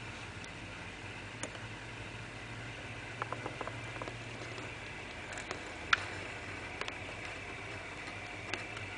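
Steady low hum and hiss of aquarium equipment and room noise, with scattered faint clicks: a short run of them around the middle, and one sharper click about six seconds in.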